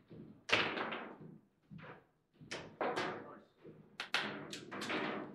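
Foosball table in play: irregular sharp knocks and thuds of the ball being struck by the players' figures and the rods banging, with a quick cluster of hits about four seconds in.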